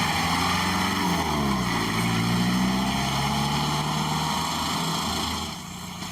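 A motor vehicle's engine running. Its pitch drops about a second in, climbs again, then holds steady, and the sound fades away near the end.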